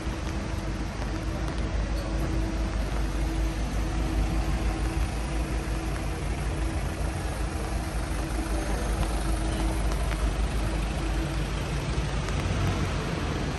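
Road traffic on a wet city street: a steady low engine rumble with a faint hum, over a continuous hiss of rain and wet roads.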